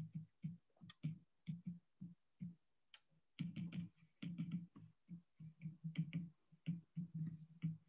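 Stylus tapping and scratching on a tablet screen during handwriting: a run of soft, irregular taps, sparse at first and coming thick and fast from about three and a half seconds in.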